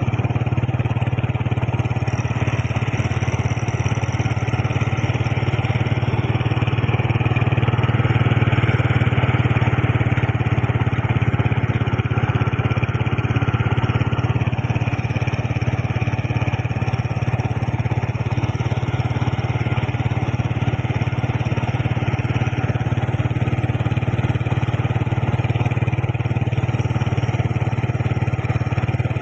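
Engine running steadily at an even speed, a low drone with no starts, stops or revs.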